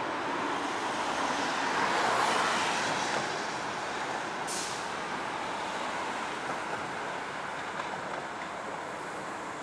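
Airbus A321 airliner on landing approach passing low overhead: a steady rush of jet engine and airframe noise, loudest about two seconds in and then slowly easing.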